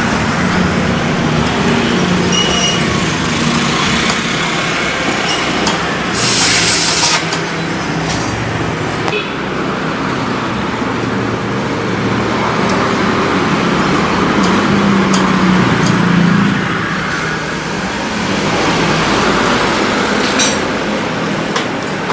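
Steady motor-vehicle and traffic noise with a low engine hum that rises and falls, and a short, loud hiss about six seconds in.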